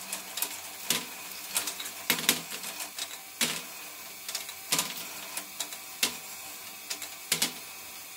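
LEGO Technic ball sweeper module running off an electric motor: a steady whir of motor and gears with sharp plastic clicks, irregular, every half second to a second or so, as the two sweepers rake the plastic balls up the ramp and they drop over.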